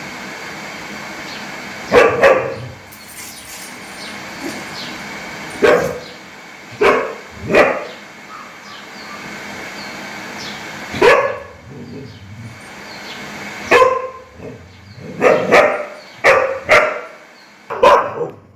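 Dog barking loudly in single barks, a few seconds apart at first, then coming faster near the end, over a steady background hiss.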